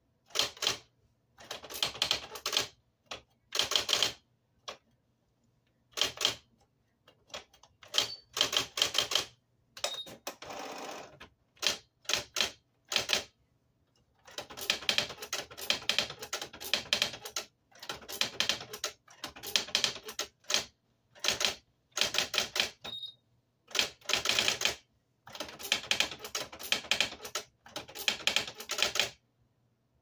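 Electric typewriter being typed on: quick runs of sharp key strikes, each run lasting a second or two, separated by short pauses, with a longer continuous mechanical sound just after ten seconds in, over a faint steady hum.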